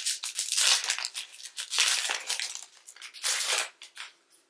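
Trading card pack wrapper crinkling and tearing as it is handled and opened, in a run of uneven rustling bursts that die away near the end.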